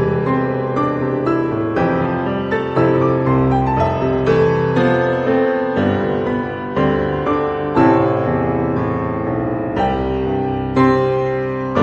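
Piano music, with notes and chords struck every half second to a second and left to ring.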